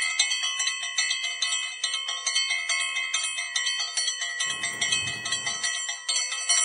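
Bicycle bell ringing rapidly and without a break, a fast run of bright metallic dings that cuts off abruptly just after the end.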